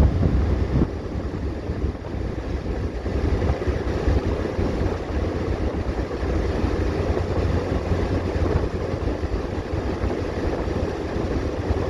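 A 1985 Alfa Romeo Spider on the move: steady low rumble of its twin-cam four-cylinder engine and the road, mixed with wind noise on the microphone.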